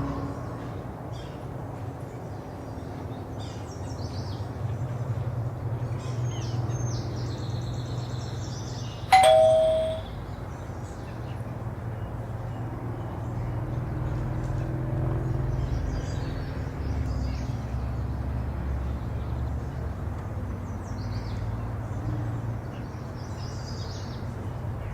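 A single short bell ding about nine seconds in, ringing out and fading within a second, over a steady low background rumble.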